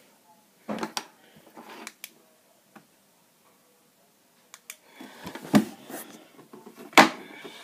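Small pieces of camping gear being handled and set down: scattered clicks and knocks, rustling handling noise in the second half, and a sharp click near the end.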